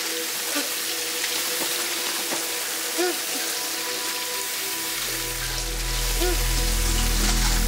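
Water spraying from a hose, a steady hiss, under held music tones; a deep bass drone comes in about two-thirds of the way through.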